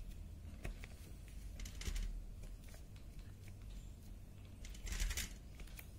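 A bundle of cotton earbuds dabbed onto card paper: soft, irregular small taps and brushing, with a short scratchy rub about five seconds in, over a low steady hum.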